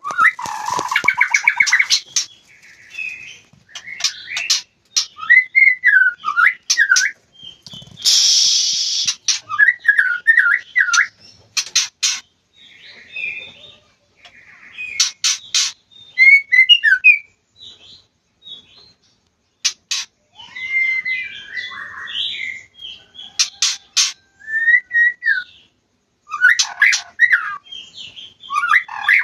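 White-rumped shama singing in breeding season: varied whistled phrases that glide up and down, broken by sharp clicking notes and, about eight seconds in, a harsh rasping call.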